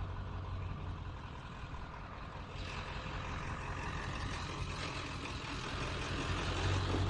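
Vehicle engine running with a steady low hum, with a broader rushing noise building from about two and a half seconds in.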